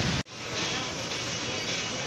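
Busy city ambience: a steady hum of traffic and a crowd of people, with faint voices. It cuts out suddenly for a moment about a quarter of a second in, then comes back just as steady.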